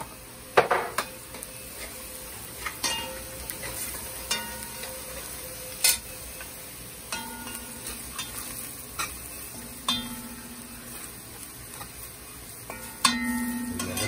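Curry powder frying in hot oil with onions, peppers and garlic in a black pot, sizzling steadily while a metal spoon stirs and scrapes it. The spoon knocks against the pot about eight times, some knocks leaving a short metallic ring. This is the curry being fried before the meat goes in.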